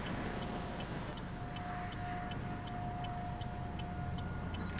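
A distant outdoor tornado warning siren holding a steady tone, with a second, higher tone joining near the end. Under it, a low rumble and a regular faint ticking of about two to three clicks a second.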